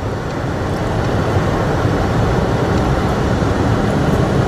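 Road noise heard inside a car cabin at freeway speed: a steady rumble of tyres and engine that grows slightly louder in the first second, then holds.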